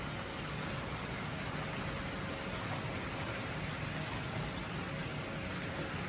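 Small fountain jets in a pool, water splashing steadily, over a low steady hum.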